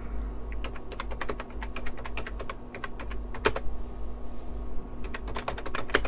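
Typing on a computer keyboard: a run of irregular key clicks, over a steady low hum.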